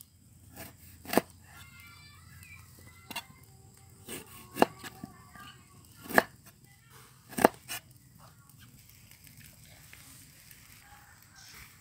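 A kitchen knife cutting limes on a wooden chopping board: about six sharp knocks as the blade goes through the fruit and strikes the board, spaced a second or more apart, stopping after about eight seconds.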